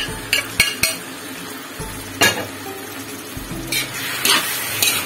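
Diced raw chicken breast sizzling in hot melted butter with garlic and onion in a metal wok, while a spatula scrapes and knocks against the pan, stirring it in. Several sharp knocks stand out over the frying hiss, the loudest a little over two seconds in.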